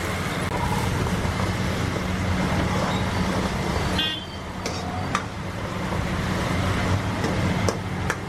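Steady roadside traffic noise, with a few short sharp clinks about halfway through and near the end.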